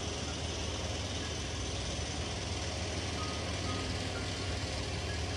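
Steady rushing of river water, an even deep rumble with hiss above it.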